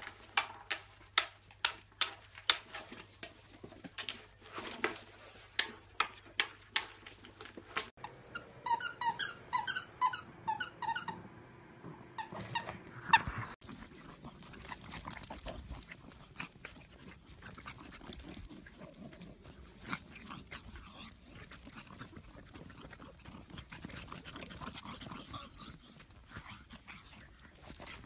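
Sharp clicks repeating two or three times a second, then a run of short, high, pitched squeaks. For the second half, a pug's paws scratch and dig in loose sandy dirt.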